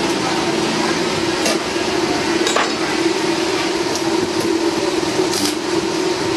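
Stick arc welding on a steel tube frame: a steady hiss with a low hum underneath, broken by a few sharp metallic clicks.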